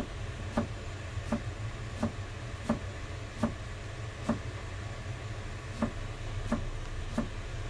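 Kitchen knife chopping leafy greens on a cutting board: about eleven even knife strokes knocking on the board, roughly one every 0.7 seconds, with a slightly longer pause past the middle.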